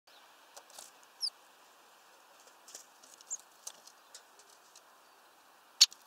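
Faint scattered ticking and two brief high chirps, then one loud sharp click near the end as a great spotted woodpecker arrives on the window feeder's branch perch.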